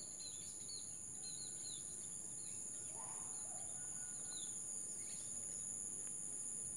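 Steady high-pitched insect trilling with many short chirps of small birds, densest near the start and again around four and a half seconds in.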